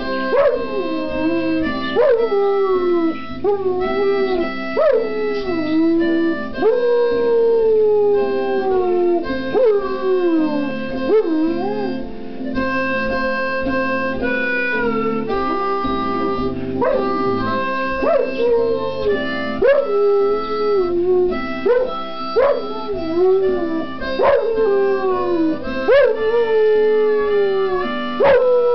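A dog howling along to blues harmonica. The harmonica plays steady chords while the dog gives a long run of howls, each sliding down in pitch, one every second or two.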